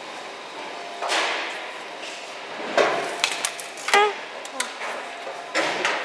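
Several sharp knocks and clicks, bunched around the middle and another shortly before the end, over steady room noise with a faint hum; a brief pitched sound about four seconds in.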